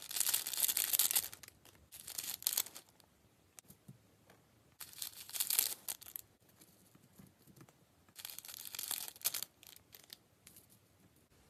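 Slime being squeezed and stretched by hand, crackling and popping in four bursts of about a second each with short pauses between.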